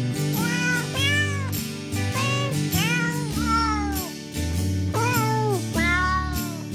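Cat meows set to a tune, about eight of them at different pitches in quick succession, over steady instrumental backing music: a novelty cats' song.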